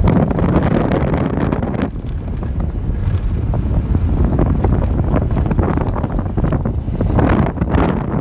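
Loud wind buffeting the microphone over a steady low rumble, gusting unevenly.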